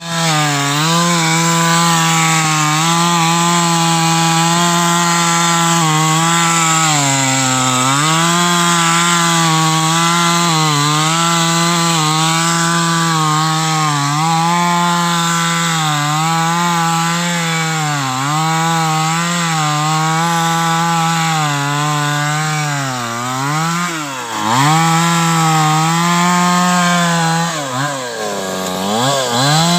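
Stihl-branded two-stroke gasoline chainsaw cutting through a thick tree trunk at high revs. The engine pitch sags each time the chain bites into the wood under load, then climbs again. Over the last few seconds the revs rise and fall several times in quick succession.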